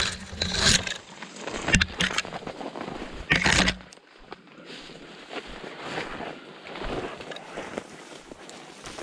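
Rustling and brushing through forest undergrowth on foot, loud with heavy low rumble for the first few seconds, then quieter rustling and steps.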